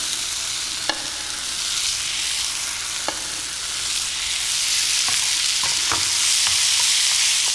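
Diced tomatoes with onion, garlic and ginger sizzling in oil in a frying pan while a wooden spoon stirs them, with a few sharp knocks of the spoon against the pan. The sizzle grows louder about halfway through.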